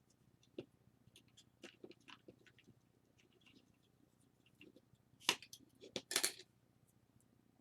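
Light clicks and scrapes of small plastic and metal parts of a disassembled camera lens being handled, with a few sharper clicks about five and six seconds in.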